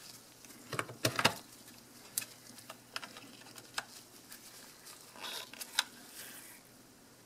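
Scattered light clicks and taps of hard plastic as a Fluke 83 multimeter's circuit board assembly is handled and seated into its plastic front case, with soft rubbing of gloved hands.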